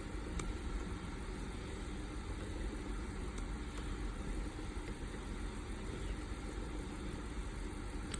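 Steady low background hum with a faint steady tone in it, and a couple of faint clicks, one about half a second in and one about three seconds in.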